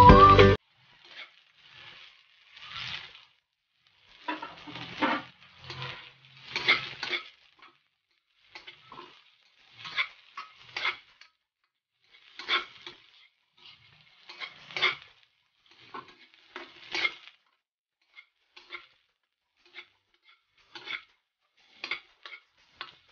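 A metal spatula scraping and tossing julienned vegetables in an oiled wok in irregular strokes with short pauses, with a light sizzle of stir-frying. Background music cuts off about half a second in.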